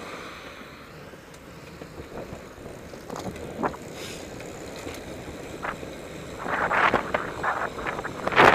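Riding noise of a velomobile under way: wind rushing over the helmet camera's microphone and the hiss of the tyres, with a few short knocks from the shell. From about six and a half seconds in the wind noise turns louder and gusty.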